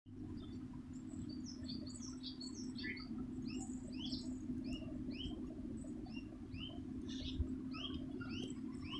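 Small birds chirping over and over, short rising chirps about two or three a second, over a steady low hum.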